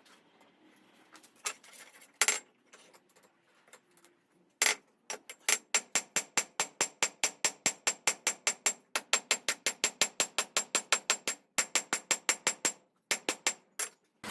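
Hammer blows on hot steel at the anvil, drawing out and thinning a knife preform: a few separate strikes, then a steady run of ringing blows at about four to five a second with two short breaks near the end.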